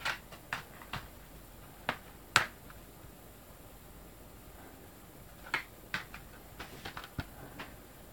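Scattered sharp clicks and taps of hard plastic DVD cases and packaging being handled, one clearly louder snap a couple of seconds in.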